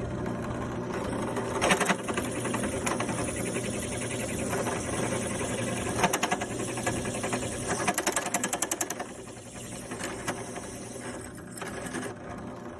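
A power cutting tool running with a steady motor hum as it cuts a hole in a wooden part. Louder bursts of cutting noise come and go, with a fast rattling stretch about eight seconds in.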